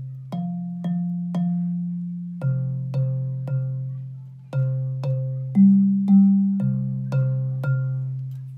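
Bass xylophone's wooden bars struck with yarn mallets, one low note about every half second, each ringing and fading: three F's, three C's, then the phrase C, C, G, G, C, C, C of an additional bass line.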